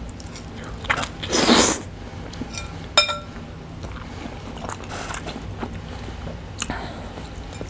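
Eating spicy instant noodles: one loud slurp of noodles about a second and a half in, then chewing. About three seconds in, a fork clinks once on the glass bowl with a short ring.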